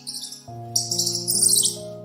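A small bird chirping in short, high, falling phrases that repeat over a backing of sustained music notes.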